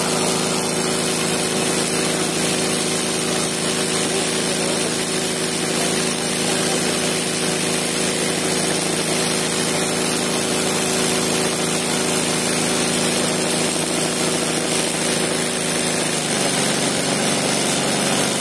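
Industrial sewing machine running steadily during hand-guided free-motion embroidery, its needle stitching a satin-stitch design through fabric in a wooden hoop. The steady running pitch drops slightly near the end.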